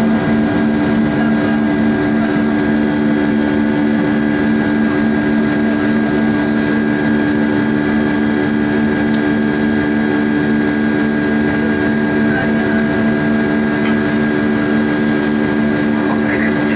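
Boeing 757 jet engines at climb power just after takeoff, heard from inside the cabin: a loud, steady drone with a couple of low, steady tones running through it.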